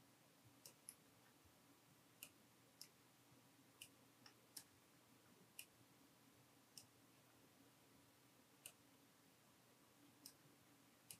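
Faint computer mouse clicks, about a dozen at irregular intervals, each one placing an anchor point of a path around the hair.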